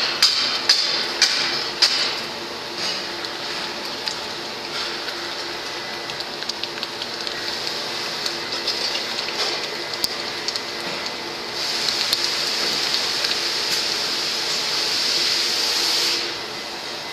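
Molten aluminium pouring from a tilting melting furnace into a steel cart, heard as a steady hiss over a machine hum. A few sharp crackles come in the first two seconds, and the hiss swells louder about two-thirds of the way through, then drops off about a second before the end.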